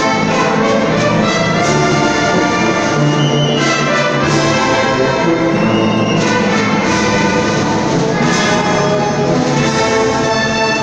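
Symphony orchestra playing, with the brass section prominent in sustained chords.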